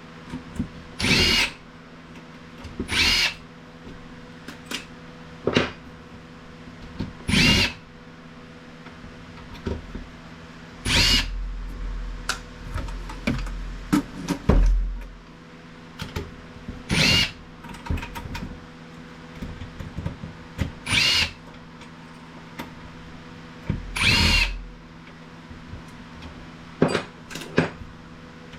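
Power screwdriver or drill spinning in short bursts, about eight in all, backing screws out of a KVM switch, with small clicks of handling between the bursts.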